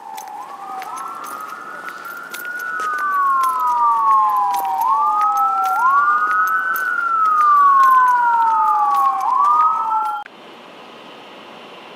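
Emergency vehicle siren wailing, two overlapping tones each rising quickly and falling slowly in a cycle of a few seconds, growing louder, then cutting off abruptly about ten seconds in, leaving a steady hiss.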